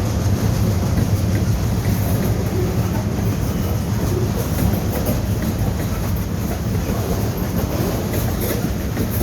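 Train cars rolling slowly past at about 10 mph, their wheels making a steady rumble with light clacking over the rails.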